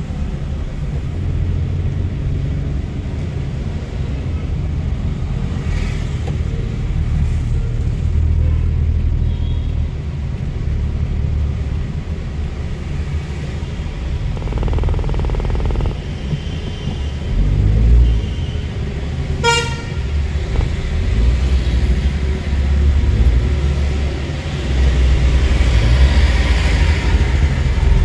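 Steady low rumble of a car's engine and tyres heard from inside the cabin while driving slowly in town traffic. A vehicle horn toots once, briefly, about two-thirds of the way through.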